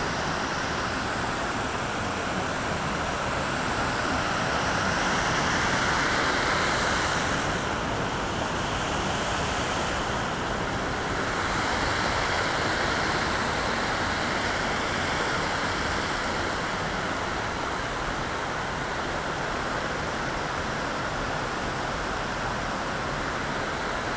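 Steady rush of a waterfall and fast stream pouring over rock ledges.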